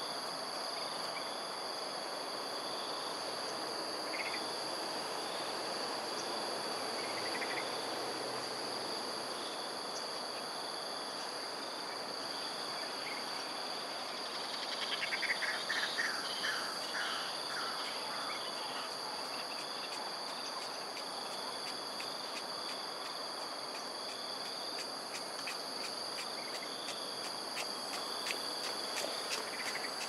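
Insects trilling steadily at a high pitch over outdoor background hiss. A short run of falling chirps comes about halfway through, and faint rapid ticking comes near the end.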